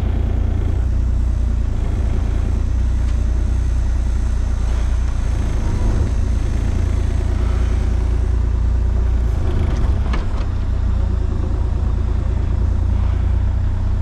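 A large engine running steadily at an even low pitch, with a few faint clicks about ten seconds in.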